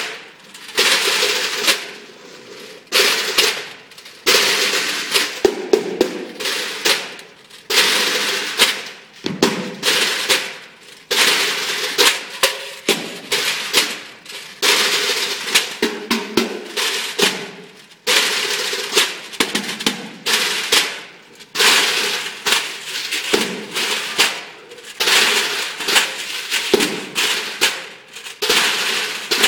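Metal pails played as percussion by a group, banged and scraped on the stage floor in rhythmic phrases, with a ringing metallic tone under the strokes.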